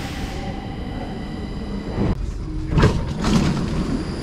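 Stockholm metro train at an underground station platform: a steady low rumble with a fading hiss at first. The sound changes about halfway through, and a loud sudden knock comes near the end.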